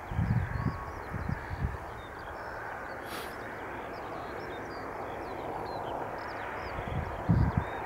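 John Deere 9660i combine harvester running steadily while harvesting barley, heard from across the field as an even mechanical hum. Small birds chirp throughout, and there are low buffeting thumps on the microphone near the start and again near the end.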